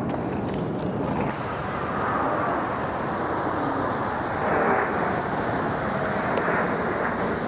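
Blue Angels jet formation flying over, a steady rush of jet noise that swells a little about halfway through.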